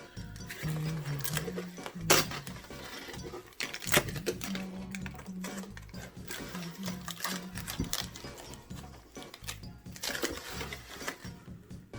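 Clattering and rustling of packaging and a thin LED grow-light panel being handled, with two sharp knocks about 2 and 4 seconds in, over faint background music.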